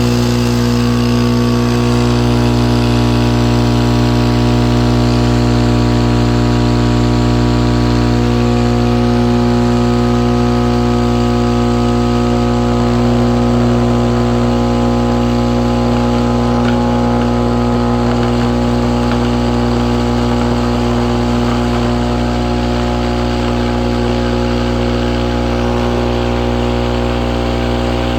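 Crossfire XS V4 15-inch subwoofer, one 1-ohm voice coil wired straight to wall-socket mains, blaring a loud, steady mains hum with a buzzing stack of overtones as it is driven to destruction. It switches on abruptly at the start, and the upper buzz thins somewhat after about ten seconds.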